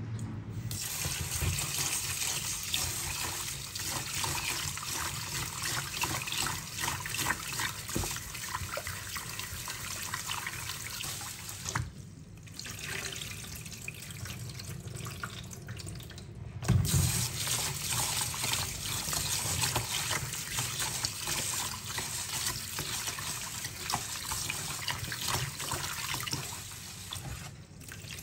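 Tap water running and splashing into a stainless steel bowl of rice as the grains are washed by hand. The flow breaks off briefly twice, and a thump about two-thirds of the way through is the loudest sound.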